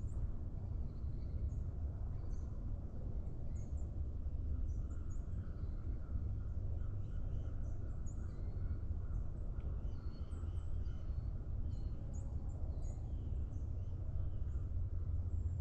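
Morning forest ambience: small birds chirping with many short, high calls throughout, over a steady low rumble.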